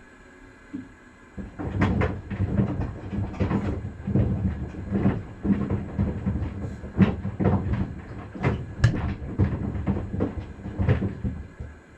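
Maytag washing machine running a wash with sandals in the drum: the motor runs with a series of knocks and thuds at about two a second. It starts about a second and a half in and stops shortly before the end.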